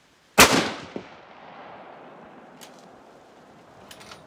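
A single shot from a Tikka .243 Winchester bolt-action rifle about half a second in, followed by a long echo rolling back off the surrounding hills for about two seconds. A few faint clicks come near the end.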